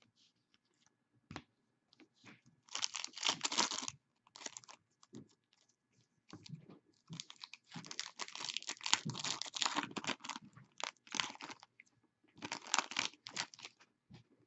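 Trading-card pack wrapper being torn open and crinkled in several bursts of crackling, with light clicks of cards being handled between them.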